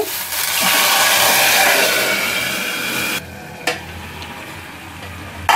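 Ground spice masala hitting hot mustard oil in a kadai, sizzling loudly. After about three seconds the sizzle drops suddenly to a quieter, steady frying hiss, with two light clicks.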